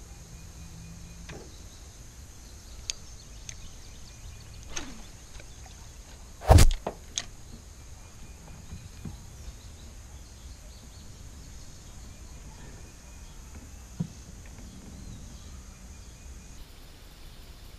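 Quiet outdoor ambience with a faint steady high tone, broken by one loud knock about six and a half seconds in and a few lighter clicks.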